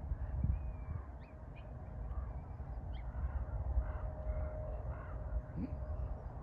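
Birds calling in short, repeated notes, over wind rumbling on the microphone.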